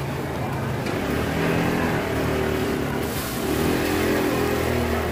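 A motor vehicle's engine running and revving close by, its pitch shifting a little as it goes, over a faint hiss.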